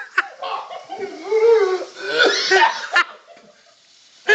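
Laughter mixed with coughing from someone choking on a mouthful of dry ground cinnamon, stopping about three seconds in.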